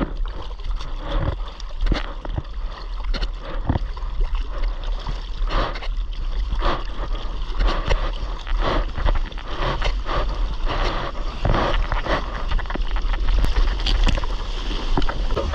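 Sea water splashing and sloshing around a surfboard-mounted action camera as the surfer paddles, with repeated splashes about once a second and a steady low rumble of water against the camera housing.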